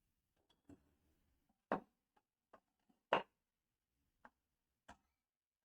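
Separate light knocks and clicks of parts being handled and pulled off a workpiece, about eight in all, the two loudest near the middle.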